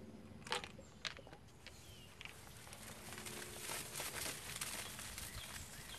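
A couple of light knocks as the Mentos are tipped in, then a fizzing, crackling spray that swells from about three seconds in as foam gushes out of a 2-liter bottle of Coca-Cola.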